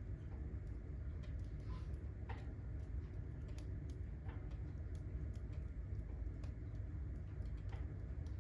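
Firewood burning in a fireplace, crackling with sharp, irregular pops over a low steady rumble.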